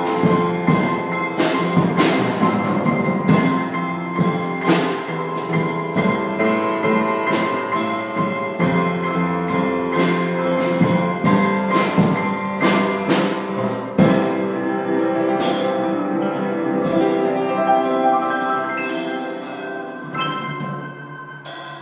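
Instrumental music: struck pitched notes that ring on, with regular drum and cymbal hits. It fades out over the last few seconds.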